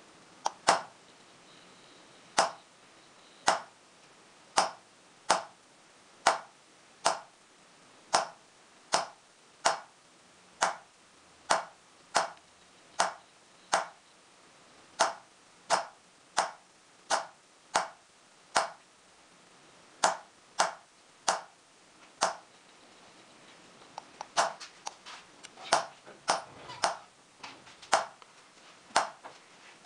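Light metallic taps of a small hammer striking a steel engraving punch into a silver plate bedded in black pitch. The taps come in a steady rhythm of a little over one a second, then turn into quicker, uneven taps near the end.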